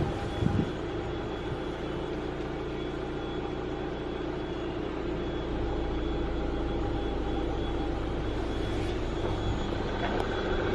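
A steady mechanical hum with a constant thin high tone, growing slightly louder about halfway through. There is a brief low thump in the first second.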